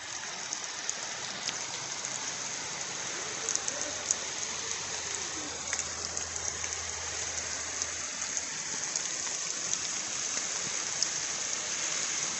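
Rain falling steadily, with many sharp ticks of individual drops landing close by over an even hiss. It grows a little louder near the end.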